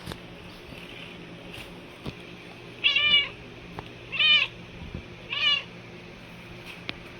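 Domestic cat meowing three times, each call about half a second long, with a pitch that rises and falls.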